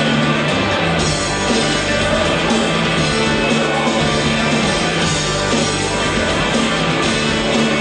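Rock music playing steadily at a high level.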